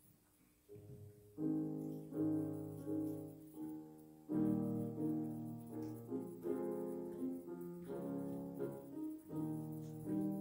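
Piano-voiced keyboard playing slow, sustained chords, starting softly about a second in and growing fuller, with the chord changing about once a second.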